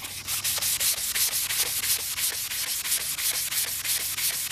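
Sanding block rubbed quickly back and forth by hand over a cloudy plastic headlight lens, in an even run of short hissing strokes, several a second. It is taking off the UV-damaged cloudy layer from the edges and corners of the lens.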